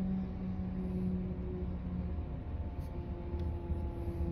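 Fire engine idling in its bay with a steady low rumble, joined by a car driving past on the road, which swells the rumble near the end.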